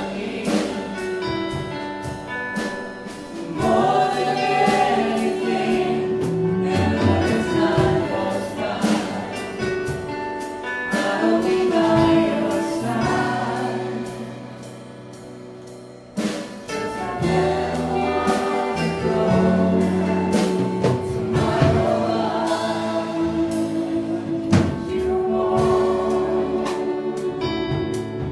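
Live worship band: several singers in unison over guitars, keyboard and drums. About halfway through the music thins and quietens for a couple of seconds, then the full band comes back in.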